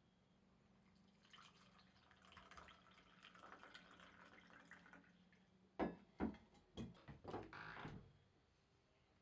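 Faint handling sounds: a soft rustling, then several light knocks in quick succession about six seconds in, ending in a short scrape.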